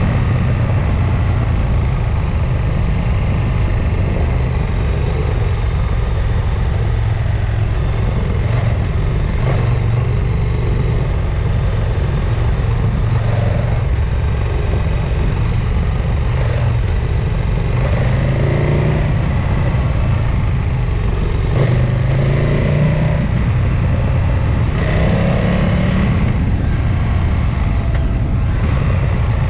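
Motor vehicle on the move down a mountain pass: a steady loud rush of wind and road noise, with an engine rising in pitch briefly several times in the second half.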